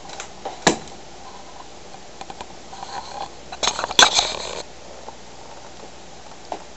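A few sharp knocks and clicks with rustling, as things are handled and moved. One knock comes early, the loudest cluster of clatter and rustle about four seconds in, and a last click near the end.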